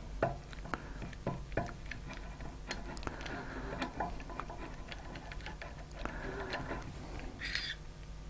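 Light, irregular metal clicks and ticks, a few per second, as a key works the screws of a Petitjean fly-tying vise to loosen them. A brief scrape comes near the end.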